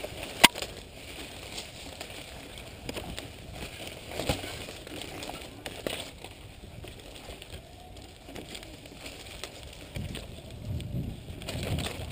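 Mountain bike riding over a narrow dirt singletrack through dense brush: a rough crunching and rustling of tyres and vegetation against the bike, with scattered rattles and knocks. A sharp click about half a second in is the loudest sound.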